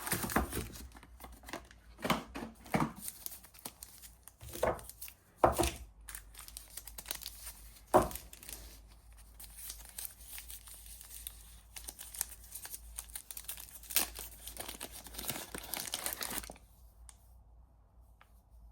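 A soap bar's wrapper being torn open and crinkled by hand: a run of irregular crackles with a few sharper rips, stopping about three-quarters of the way through.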